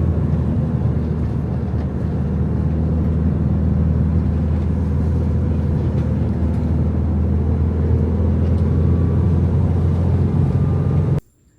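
Steady low rumble of a moving vehicle, its noise heaviest in the bass, cutting off suddenly near the end.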